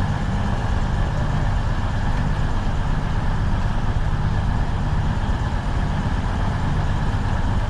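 Stationary diesel passenger train idling: a steady, even low engine hum.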